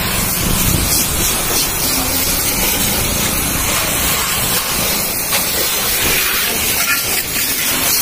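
High-pressure water jet spraying onto a motorcycle's bodywork, rear wheel and the ground: a steady, loud hiss of spray with water splashing.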